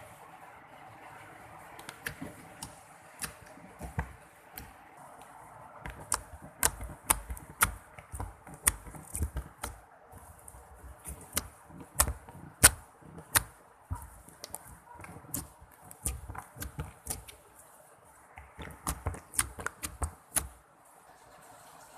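Slime being squeezed and stretched by hand, with trapped air popping in irregular sharp clicks that come thick and fast for several seconds, ease off, then return in a short flurry near the end.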